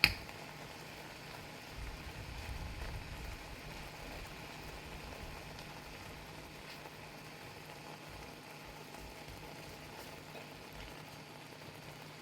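Shrimp cooking with a steady bubbling hiss, and a sharp click right at the start.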